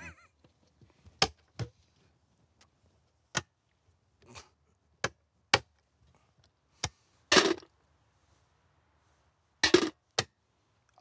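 Coins used as mancala pieces being dropped and moved on the board: single sharp clinks at irregular intervals, with a few longer clatters, the loudest about seven seconds in.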